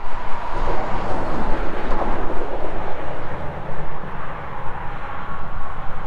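Steady motor-vehicle noise: a continuous low rumble with a hiss over it and a faint steady tone near the end.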